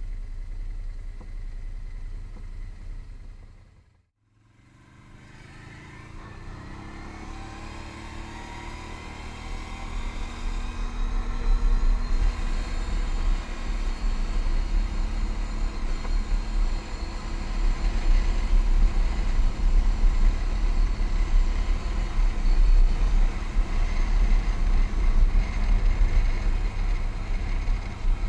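ATV engine running, fading to a moment of near silence about four seconds in. It then comes back and revs up, pitch rising, before settling into steady running with a strong low rumble.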